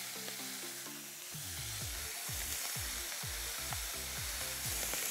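A large stockpot of apple juice and cider simmering on the stove, hissing and sizzling steadily as it bubbles. Background music with a low, repeating bass beat plays underneath.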